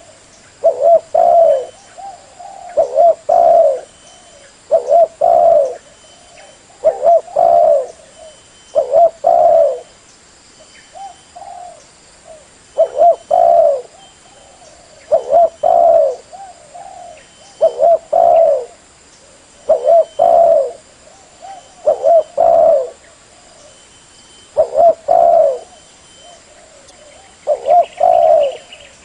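Spotted dove (tekukur) cooing: a short, throaty phrase of two or three notes, about a second long. It is repeated roughly every two seconds, with a couple of longer pauses.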